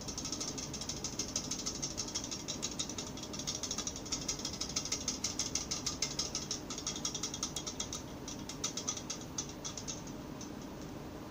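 Carbonated Kickapoo Joy Juice fizzing as it is drunk from the can, a dense fine crackle of bursting bubbles close to the microphone that starts suddenly and dies away about ten seconds in.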